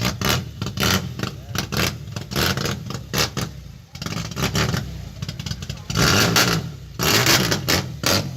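Chevrolet Opala's straight-six engine running loud and rough, with two louder stretches near the end as it is revved.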